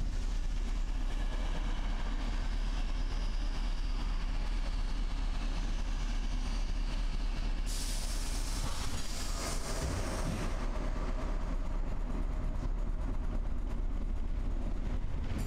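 Narrow-gauge train of the Roma–Giardinetti line running on its track, a steady low rumble with hiss above it that thins out about two-thirds of the way through.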